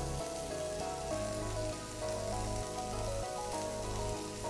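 Mixed vegetables sizzling as they sauté in butter in a frying pan, a steady hiss, under background music of held notes.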